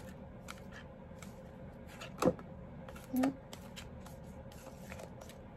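Oracle cards being handled and shuffled: scattered soft clicks and flicks of card stock, with a sharper snap about two seconds in.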